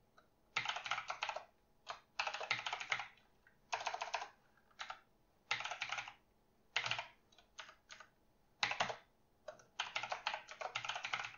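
Fast typing on a computer keyboard, the keystrokes coming in short bursts of about a second with brief pauses between them.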